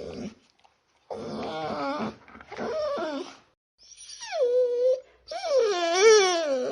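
A dog whining and howling in four drawn-out, wavering calls; the third slides down and then holds a steady pitch.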